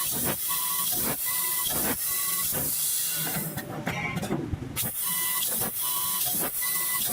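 Laser tube cutting machine cutting metal: a steady hiss of the assist gas jet, broken about once a second by short faint tones and brief changes as the head moves from cut to cut.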